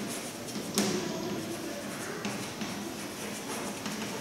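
Chalk writing on a chalkboard: scratching strokes and taps, with one sharper tap about a second in.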